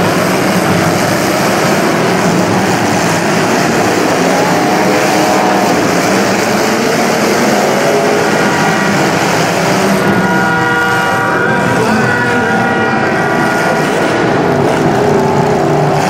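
Demolition derby cars' engines running and revving together in a loud, steady din. A held high-pitched note comes through for a couple of seconds about ten seconds in.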